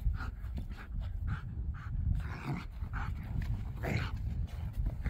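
A dog panting, about two quick breaths a second, over a steady low rumble.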